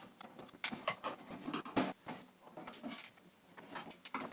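Scattered light clicks and brief rustles of hands handling the computer and its parts, irregular and fairly quiet.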